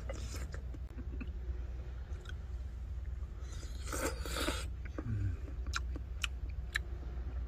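A person eating udon noodles: one long slurp about four seconds in, with chewing and a few light clicks of utensils against the bowl near the end, over a steady low hum.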